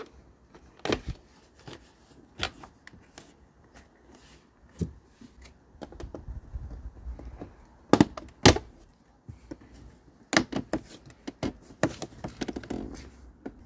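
Hard plastic dashboard side trim on a BMW F30 being pried off by hand and with a plastic card: a series of sharp clicks and knocks as the retaining clips let go. The two loudest snaps come close together about eight seconds in, followed by a quicker run of clicks.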